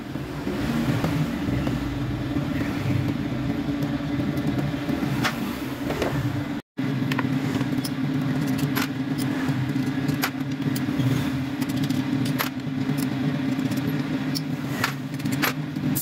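Steady low mechanical hum of an engine or machine running in the background, with scattered sharp metal clicks and taps of hand tools working the bolts of a Yamaha NMAX's CVT cover. The sound cuts out briefly a little before halfway.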